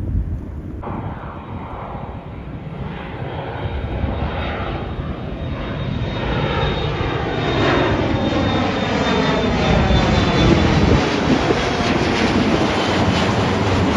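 Airliner flying past, its engine roar building steadily louder, with a whine and a sweeping, falling tone as it nears and goes by.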